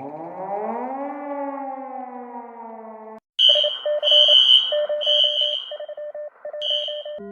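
Emergency alert siren winding up over about a second, then sliding slowly down in pitch and cutting off about three seconds in. It is followed by four loud, high-pitched alarm beeps over a lower, rapidly warbling alarm tone.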